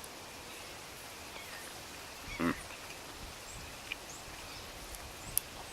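Steady outdoor background hiss, with one short vocal murmur about halfway through and a few faint high chirps or ticks near the end.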